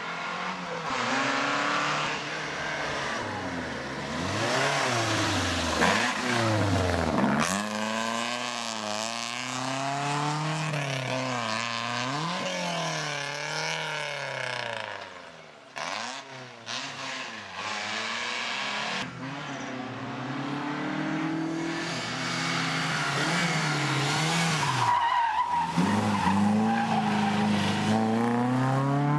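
A historic rally car's engine, worked hard through a tight hairpin: the revs climb and drop again and again as the driver shifts gears, brakes and accelerates. The sound dips briefly about halfway through and again near the end.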